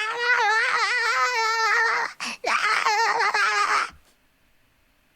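A woman's high-pitched, wordless vocal noises with a warbling, wavering pitch, made playfully as cute sounds. There is a brief break a little after two seconds, and the sound cuts off abruptly about four seconds in.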